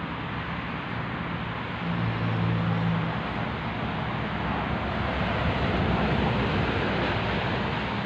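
Steady noise of road traffic with wind on the microphone, and a low engine hum that swells about two seconds in and again past the middle.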